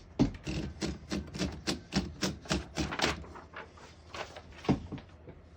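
1935 Corona Standard portable typewriter being typed on: a quick run of key strikes for about three seconds, then a few scattered clicks and one sharper knock.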